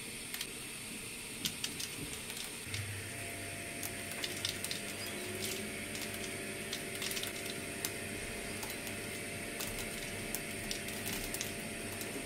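Crisp sesame-coated crust of baked poğaça crackling with small irregular clicks as the pastries are torn open by hand. A faint low hum sets in about three seconds in.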